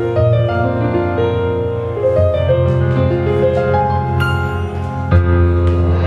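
Instrumental music with strong bass, played through Logitech Z623 2.1 computer speakers and their subwoofer and picked up about a metre away. The bass is turned up to 75%.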